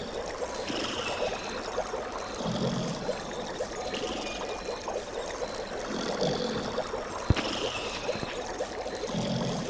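Steady running water with short calls recurring over it, and a single sharp click about seven seconds in.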